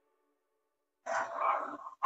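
A spoon stirring and scraping cooked rice in a kadhai: silent for about the first second, then a scraping rush, with a second short stroke near the end.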